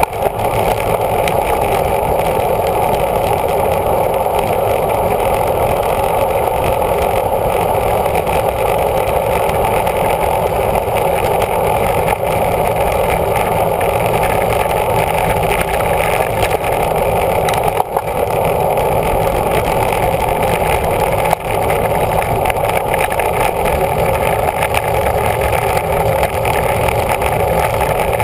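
Steady roar of wind on a camera riding on a road bike at over 20 mph, with a low rumble under it and only a couple of brief dips.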